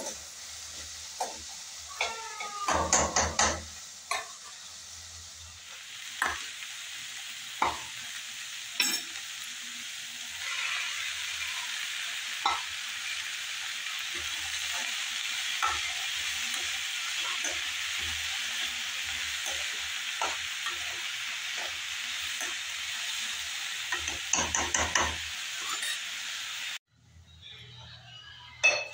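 Chopped vegetables frying with a steady sizzle in a metal kadai on a gas stove, with a spatula scraping and clicking against the pan as they are stirred. The sizzle cuts off abruptly near the end.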